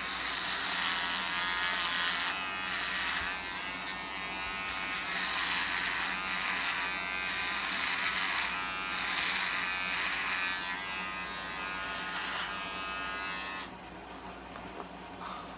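Handheld electric trimmer buzzing as it cuts through beard stubble, its loudness wavering as it is moved over the face. It switches off near the end.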